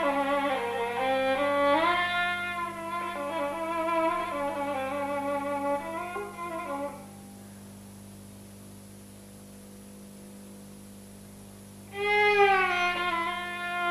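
Solo bowed string instrument playing a slow, sliding melody. It breaks off about seven seconds in, leaving only a faint low hum, and comes back near the end with a long held note.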